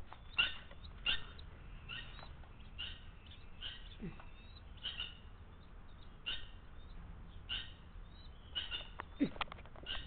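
Red-wattled lapwing giving short, sharp single calls about once a second, over and over. Near the end there are a few clicks.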